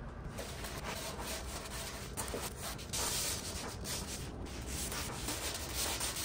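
Hand sanding a truck's front bumper and its body filler with a sanding block: quick back-and-forth rasping strokes, somewhat louder about three seconds in.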